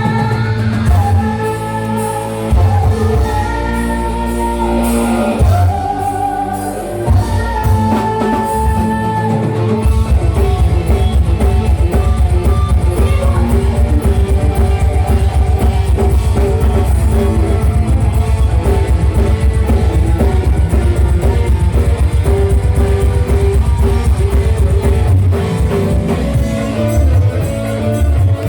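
Live dangdut music with singing over drums and a melody; about ten seconds in, a fast, steady, bass-heavy beat takes over.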